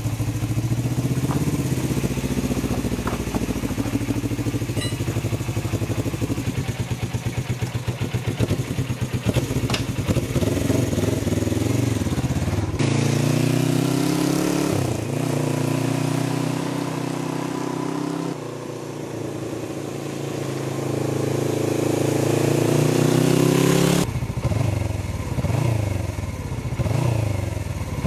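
1981 Suzuki GS450L's parallel-twin engine, freshly brought back to running after about ten years unused. It runs steadily at first, then is heard in several cut-together stretches with the revs climbing, as when the bike pulls away and accelerates.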